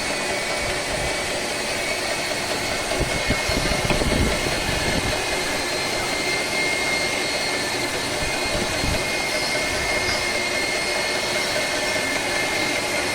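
Single-screw (progressive cavity) pump running steadily on test, a constant mechanical hum with a high whine, with some low rumbling about four seconds in.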